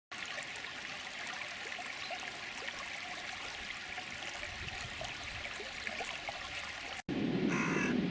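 Steady rushing of a flowing stream. About seven seconds in it cuts off abruptly, giving way to a louder, lower rumble with a short pitched call.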